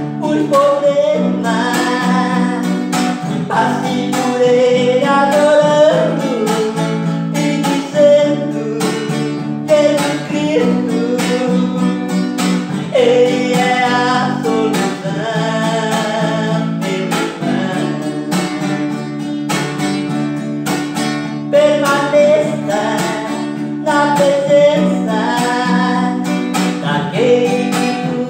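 A man singing a worship song in phrases while strumming an acoustic guitar in a steady rhythm.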